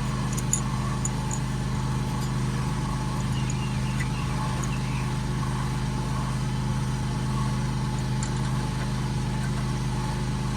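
A steady, unchanging low mechanical hum, like an engine or machine running, with a few faint clicks about half a second in.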